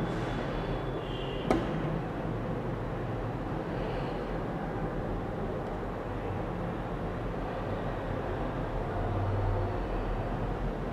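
Steady background rumble and hiss with a low hum, and a single sharp click about one and a half seconds in.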